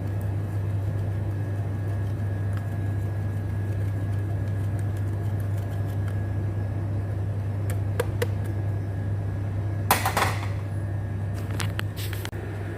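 Steady low mechanical hum, with a few light clicks and a short, loud rustling clatter about ten seconds in.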